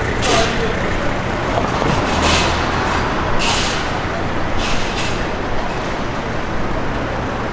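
City street traffic: a steady din of vehicles on the road, with several short hisses in the first five seconds or so.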